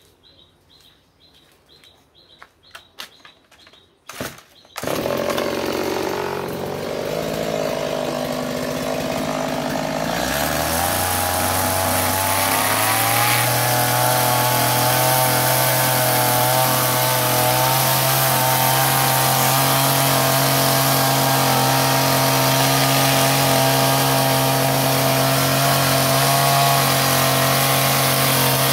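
Birds chirping faintly, then a petrol chainsaw starts about four seconds in and runs steadily and loudly, its engine note stepping up in pitch between ten and thirteen seconds in.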